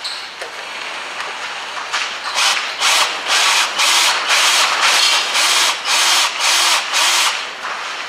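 Hand-held electric drill boring a 5 mm bit into a sheared steel M6 bolt in a hub carrier, the bit cutting and grinding in short bursts about twice a second from about two seconds in.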